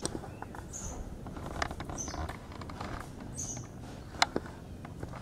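Ambient sound with a small bird's short, high chirps repeating about every second, over a low background rumble. A couple of sharp clicks about four seconds in are the loudest sounds.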